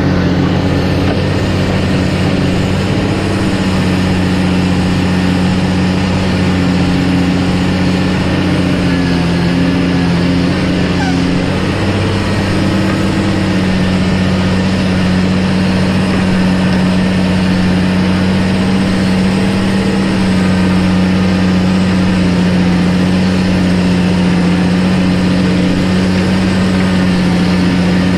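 Caterpillar 615C elevator scraper's diesel engine running steadily as the machine moves forward loading soil, its cutting edge in the ground and the elevator turning.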